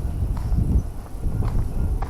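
Footsteps of someone walking on pavement, a step about every half second, over a low steady rumble.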